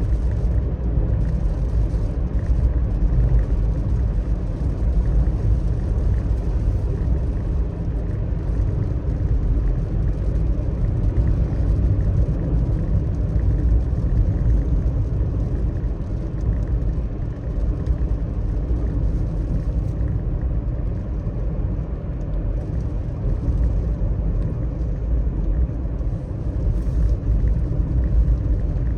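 A car driving on a rain-wet road: a steady low rumble of tyres and running gear that holds even throughout.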